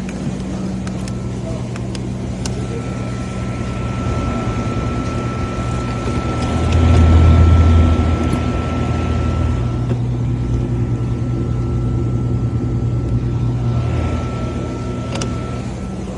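Steady machine hum with a thin, high whine running through most of it, swelling louder for a second or two in the middle.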